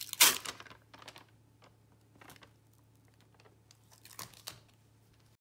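Scored peel-and-stick vinyl tile snapping with a sharp crack along its knife score line as it is bent, followed by softer clicks and crinkling as the tile pieces are handled.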